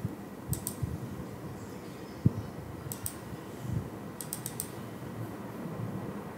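Computer mouse clicking: a quick double click, another about three seconds in, then a run of about four clicks. A single dull low thump comes a little over two seconds in.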